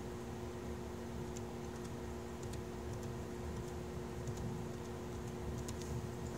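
Laptop keyboard typing: scattered, irregular keystrokes, faint against a steady low room hum with several fixed tones.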